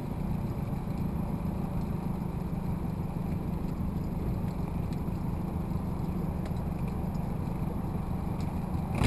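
Motorboat engine running steadily as the boat cruises across open water.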